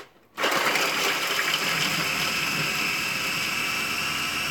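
Electric mini food chopper chopping garlic cloves: a click, then the motor starts about half a second in and runs steadily with a high whine.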